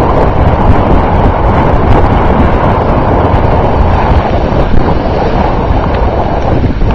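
Loud, steady wind buffeting the microphone at skiing speed, mixed with the rushing hiss of skis sliding over snow.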